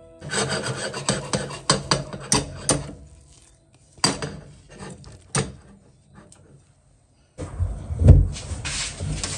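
Handling noise: scraping and rubbing with a quick run of clicks and knocks, sparser single knocks, then a rough rustle with one loud thump about eight seconds in.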